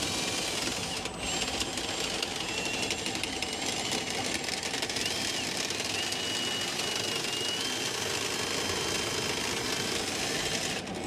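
Ridgid K9-204 FlexShaft drain cleaner's cable spinning and rattling inside the drain line under the floor, a steady dense clatter as it works its way toward the bathroom.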